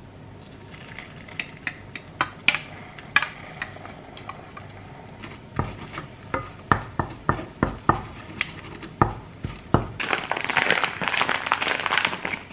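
A wooden spoon knocks and scrapes against a stainless-steel frying pan while scrambling eggs, with a light sizzle underneath; the knocks come about two a second. Near the end, a plastic bag crinkles as it is pulled open.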